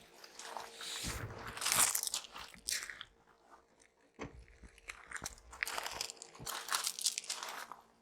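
Irregular crunching and rustling from handling packaging or the fridge's parts, over a faint steady hum.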